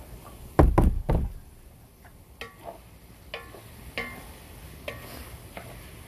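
Three heavy knocks just over half a second in, then scattered light taps and clinks with a brief metallic ring from a large aluminium basin as diced meat is mixed in it by hand.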